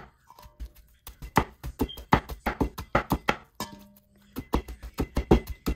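Knife chopping rapidly on a cutting board, about five strokes a second in runs broken by two short pauses, mincing cooked fish together with eggplant and onion for laab.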